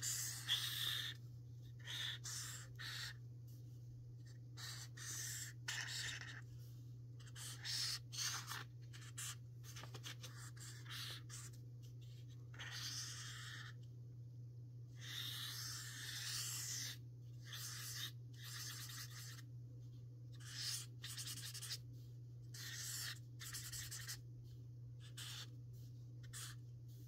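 Sharpie King Size permanent marker drawing on paper: irregular strokes, some short, some drawn out over a second or more, with brief pauses between them. A steady low hum runs underneath.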